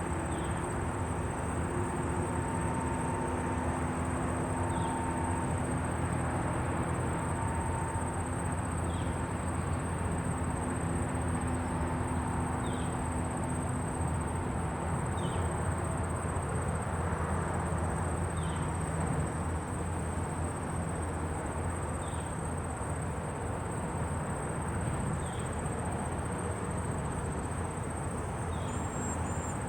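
Rural outdoor ambience: a steady low rumble of wind under a continuous high insect buzz, with a short high chirp about every three to four seconds.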